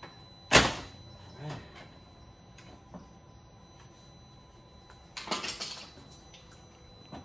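Long-handled bolt cutters snapping through the plastic of a car's active grille shutter: one sharp, loud crack about half a second in and a smaller one a second later. A short clattering rattle of plastic and tool follows about five seconds in.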